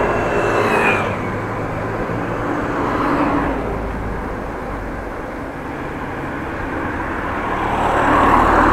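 A motorcycle, like a Honda Transalp, passes close by going the other way. Its sound swells and drops in pitch within the first second. Steady wind and road noise from the moving bicycle carry on beneath it and swell again near the end.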